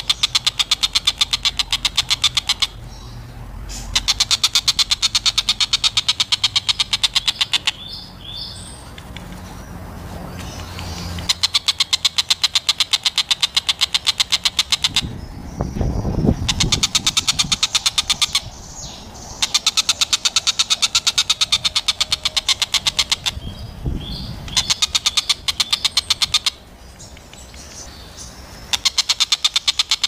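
Oriental dollarbird (tengkek buto) giving its fast chattering 'kek-kek-kek' call. It comes in about seven loud bouts of two to four seconds each, with short pauses between them. A low rumble rises in two of the pauses.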